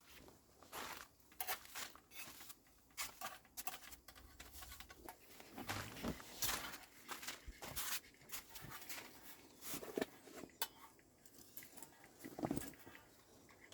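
Irregular rustling with scattered light clicks and knocks, a few of them louder, from things being handled at close range.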